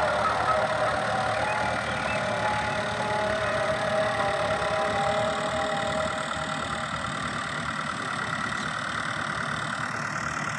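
Fiat 640 tractor's four-cylinder diesel engine running steadily under load as it pulls a laser land leveller through loose soil. The sound grows slowly fainter.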